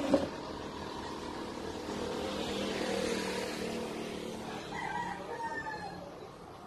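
A motor vehicle passing outside, its steady noise swelling and then fading, with a rooster crowing about five seconds in. A sharp click comes just at the start.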